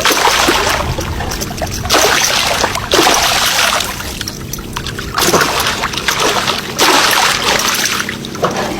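Water splashing and sloshing in several bursts about a second long, roughly every two seconds.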